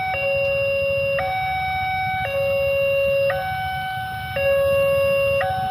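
Railway level-crossing warning siren sounding a two-tone hi-lo alarm, switching between a higher and a lower pitch about once a second. It is the crossing's alert that a train is approaching.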